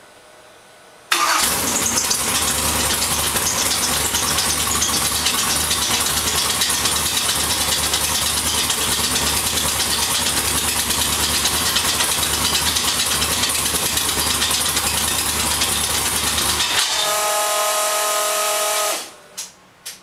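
A Ford 302 small-block V8 with short open exhaust pipes starts abruptly about a second in and runs loud and steady, then cuts off near the end, leaving a brief whining tone. The engine is being run to find a scratchy, metal-on-metal noise that seems to come from near the distributor, later traced to broken lifters.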